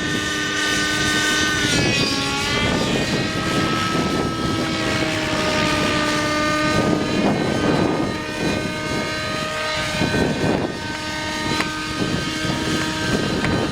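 Radio-controlled helicopter in flight: a steady motor and rotor whine whose pitch dips about two seconds in and shifts a few more times as it manoeuvres, with wind buffeting the microphone.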